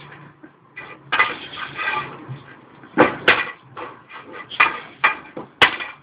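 Sweeping brush clattering and knocking about as a boxer dog plays with it, in irregular bursts with a few sharp knocks.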